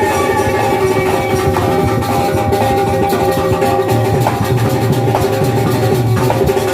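Instrumental music: drum strokes over steady held notes.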